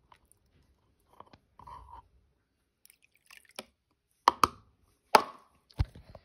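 Soft handling rustles, then sharp plastic knocks: a quick double knock, then two more single knocks, as a plastic container is picked up and set down on the floor.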